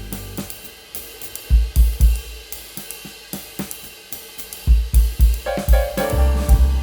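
Background music with a drum kit and cymbals. The melody and bass drop away for a stretch of drums and cymbals alone, and the deep bass and melody return near the end.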